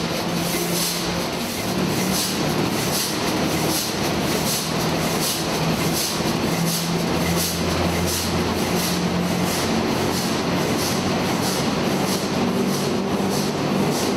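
Large B&W marine diesel engine running: a steady mechanical clatter with a fast, even beat of a few strokes a second over a low hum.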